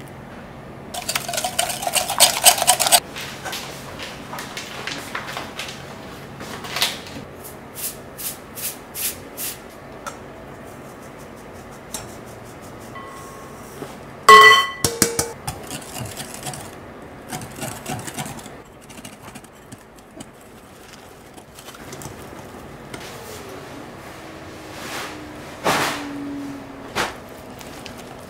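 A wire whisk beats egg batter in a glass bowl, its wires clicking fast against the glass. About halfway through there is one sharp ringing clink, as a steel bowl knocks the glass rim while sifted flour is tipped in. More whisking clicks follow near the end.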